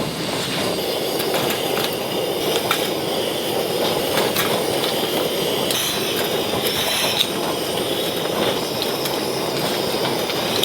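Strong wind blowing steadily against a car-camping tent, with scattered clicks from the fabric and fittings.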